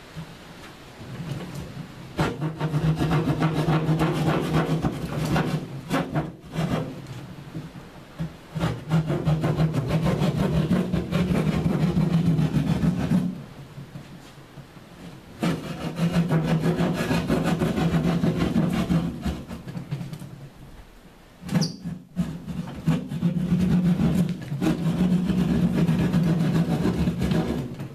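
Drywall keyhole saw cutting through a gypsum drywall panel along knife-scored lines: fast rasping back-and-forth strokes in four long bouts with short pauses between them.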